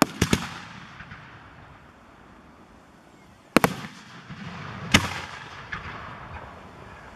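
Aerial fireworks shells bursting: three quick bangs at the start, then two louder booms about three and a half and five seconds in, each trailing off in an echo, with a smaller pop just after.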